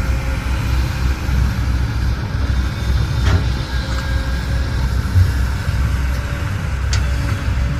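Heavy diesel engine running steadily, with two brief sharp clicks about three and seven seconds in.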